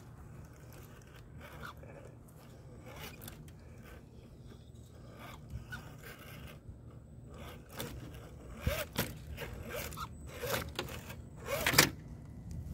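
RC4WD TF2 scale rock crawler creeping over wet wooden boards, its tyres and chassis scraping and knocking on the wood. There are scattered light clicks at first, then a run of sharper knocks in the last few seconds, the loudest near the end.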